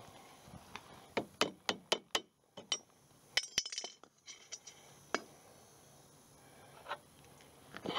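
Sharp metallic clicks and clinks of a hand tool working on a wheelbarrow wheel's steel axle bracket: a quick run of about five clicks a little after a second in, a few ringing clinks around three and a half seconds in, then single clicks now and then.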